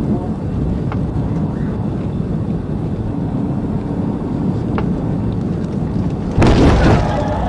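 Steady wind and road roar inside a police cruiser running at over 110 mph. About six and a half seconds in comes a sudden loud crash lasting about half a second, as the pickup truck alongside and the cruiser collide.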